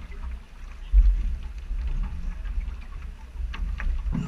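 Wind buffeting the microphone as a low, gusting rumble, strongest about a second in, with a few light taps near the end.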